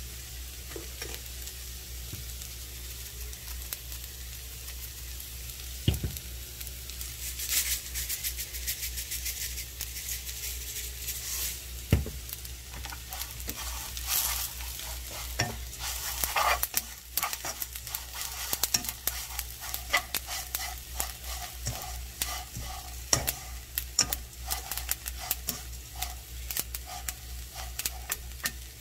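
Crumbled perilla leaves sizzling in a frying pan while they are stir-fried with chopsticks, with frequent light scrapes and clicks that grow busier after about seven seconds. Two sharper knocks come about six and twelve seconds in, over a steady low hum.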